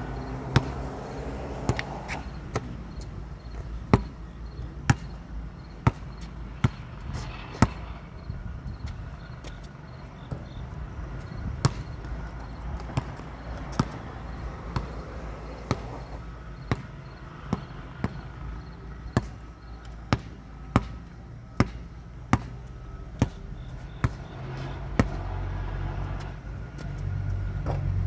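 Sharp thumps repeating about once or twice a second at uneven intervals, with a pause of a few seconds about a third of the way through, over a steady low rumble that grows louder near the end.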